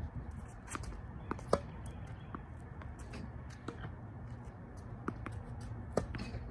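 A Yonex Ezone tennis racket strikes a tennis ball with a sharp pop about a second and a half in and again about six seconds in. Fainter knocks from the ball bouncing on the court and from the ball launcher's feed fall in between, over a steady low rumble.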